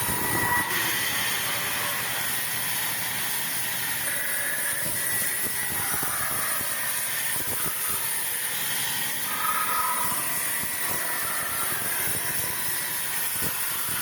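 Sawmill machinery running, a steady noisy hiss with a faint whine.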